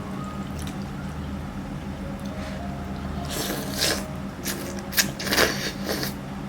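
Close-miked wet eating sounds of spicy noodles: slurping and chewing in two short clusters, about three and five seconds in.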